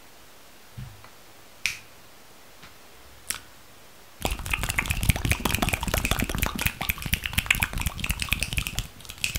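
A few faint single clicks, then from about four seconds in a dense, fast run of crisp clicks and crackles: rapid close-up ASMR triggers.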